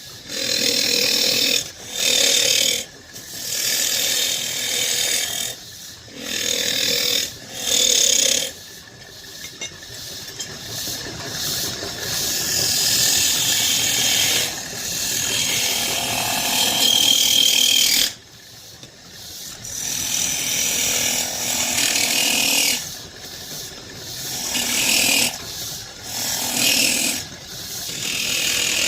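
A tool working wood in repeated passes: scraping, rasping strokes of a second or two each with short pauses. A longer unbroken stretch cuts off suddenly about two-thirds of the way through.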